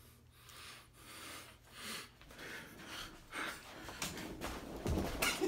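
A man breathing heavily in short, gasping breaths, as if about to faint, with a low bump about five seconds in.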